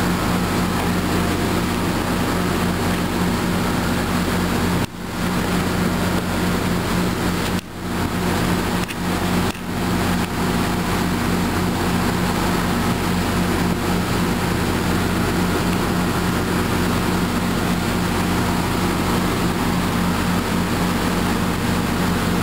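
Steady low drone of an MBTA commuter train's diesel locomotive idling while the train stands still, with a constant hum underneath. The level dips briefly a few times in the first half.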